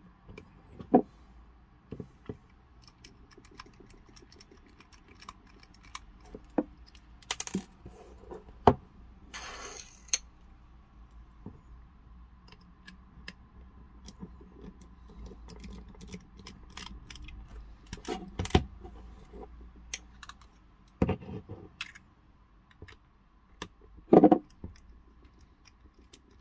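Scattered small clicks, taps and knocks of a precision screwdriver working tiny screws out of a plastic security-camera housing while the parts are handled, with a short rustle about ten seconds in and a few louder knocks near the end.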